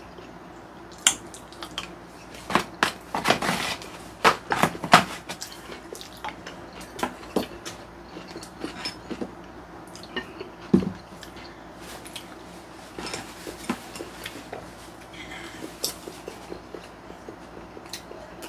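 Table eating sounds: metal chopsticks and a spoon clicking and scraping against a plate and plastic takeout containers, in scattered short clicks that are busiest in the first five seconds, with one duller knock a little before the middle.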